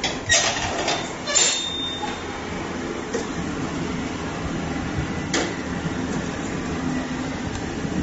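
Hands handling parts on a hot bar bonding machine's fixture: a few sharp clicks and clatters, most of them in the first second and a half and one more a little past the middle, over a steady background hum.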